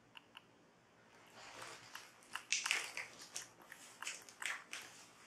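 Packaging crinkling and rustling as it is handled: two faint clicks, then from about a second in an irregular run of crackles.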